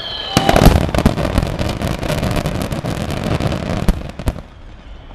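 Aerial fireworks display: a dense, rapid run of sharp shell bursts and cracks for about four seconds, then dying away near the end.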